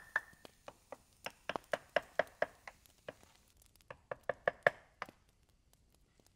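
Hatchet chopping a stick of wood held upright, in quick light strokes of about four a second: a run of sharp knocks, a short pause, then a second quicker run ending about a second before the close.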